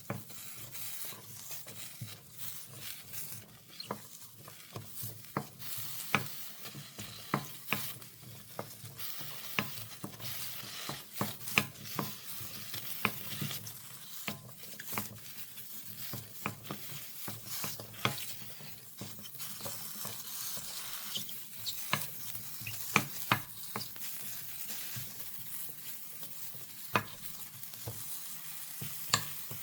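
Julienned king oyster mushrooms stir-frying in a hot pan: a steady sizzle broken by frequent, irregular sharp taps and scrapes of the stirring utensil against the pan.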